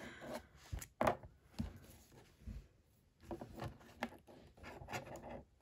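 Quiet handling sounds: a sealed baseball-card pack and loose cards being moved about on a tabletop, with a few soft knocks.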